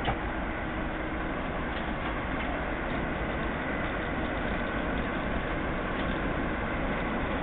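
Class 08 diesel shunter's English Electric six-cylinder engine running steadily as the locomotive creeps forward over newly relaid pointwork, growing slightly louder as it draws nearer. A single sharp knock right at the start.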